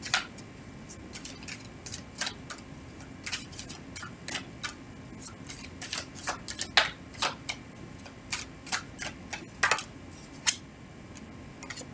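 A deck of tarot cards being shuffled overhand by hand: irregular, crisp clicks and snaps of card edges, several a second, with a couple of louder snaps about seven and ten and a half seconds in.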